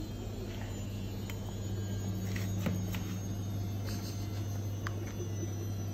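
Steady low electrical hum of a running kitchen appliance, with a few faint short clicks over it.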